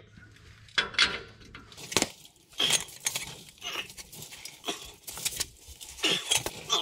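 Hand socket ratchet with a 15/16 socket working a leaf-spring U-bolt nut: metal clinks as the socket goes onto the nut, then irregular runs of ratchet clicks as the handle is swung back and forth.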